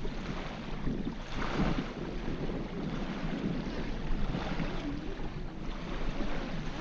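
Wind blowing on the microphone over the steady wash of small waves on a sandy shore.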